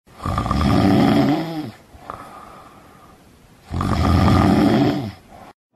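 A person snoring: two loud snores, each about a second and a half long, with quieter breathing between them.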